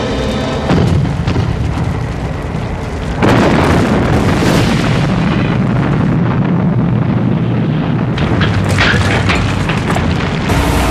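A heavy explosion about three seconds in, rolling on into a long, loud rumble of blast and fire, with sharp crackles near the end.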